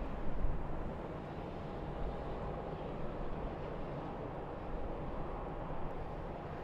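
Diesel engine of a Komatsu 270 wheel loader running as it drives: a steady low rumble, with a brief surge about half a second in.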